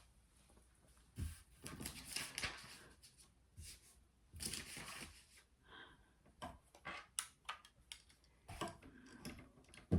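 Handling noise: rustling and crinkling with a run of irregular clicks and light knocks, as of objects and packaging being moved about by hand.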